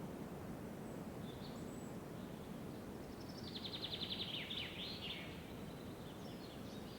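Forest ambience: birds calling over a steady low background rumble, with a rapid trill of quick repeated notes and a few falling notes from about halfway through.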